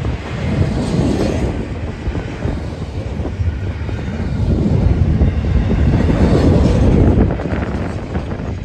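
BNSF double-stack intermodal freight train rolling past: a steady heavy rumble with clatter from the wheels on the rails, swelling louder past the middle and easing slightly near the end.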